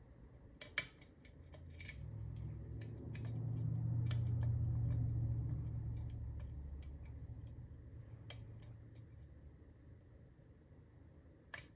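Small metal clicks and scrapes of lock picks working the pins of a cruciform (cross-key) padlock, a handful of separate clicks spread through. A low hum swells up and fades away again in the middle.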